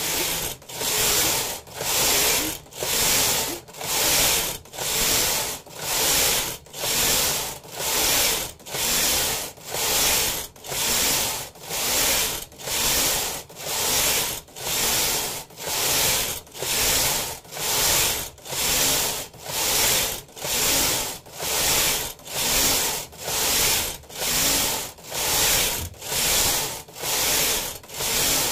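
Domestic punch-card knitting machine carriage pushed back and forth across the metal needle bed, knitting a two-colour pattern. One pass about every second, each a steady clatter of needles through the carriage with a brief dip at each turn.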